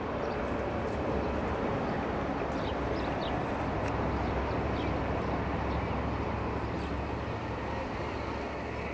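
Steady outdoor urban ambience: a low rumble and hiss of distant traffic.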